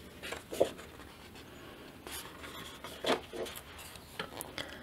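Sheet of embossed-dot cardstock being handled and tilted: a few faint rubs and soft scrapes of paper against hands and table.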